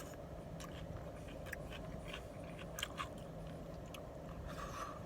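A person chewing a mouthful of burrito bowl food, with small scattered wet clicks and crunches, over a steady low hum.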